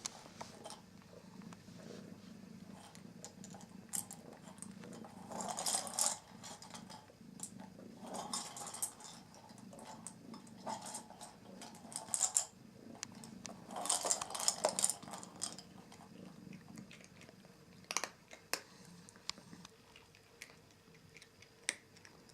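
A Norwegian Forest cat purring steadily close to the microphone, the purr fading out near the end, with short bursts of rustling and clicking noise every few seconds.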